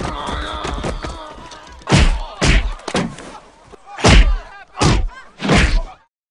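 A scuffle between two men: a man's cries, then five heavy thuds about a second apart.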